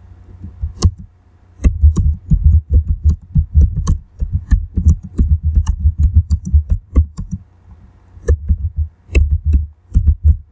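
Typing on a computer keyboard: keystrokes several a second, each a dull thump with a click, starting after a single early click and pausing briefly about three quarters of the way through.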